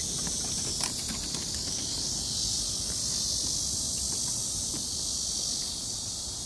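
A steady high-pitched chorus of insects chirring, with a few light taps of footsteps on the wooden steps in the first second and a half.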